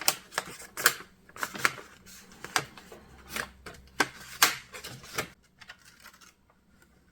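Irregular plastic clicks and taps with some paper rustle, from hands working a Philips NMS 1421 dot matrix printer's tractor-feed paper guides and covers. The clicks die away after about five seconds.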